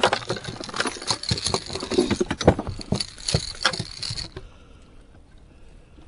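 Small striped bass thrashing as it is unhooked: a quick run of irregular slaps and rattles that stops suddenly about four seconds in.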